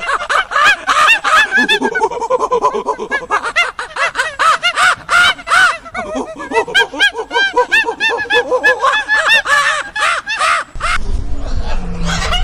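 Birds calling rapidly, many short harsh calls several per second overlapping one another. Near the end the calls stop and a lower, noisier animal sound takes over.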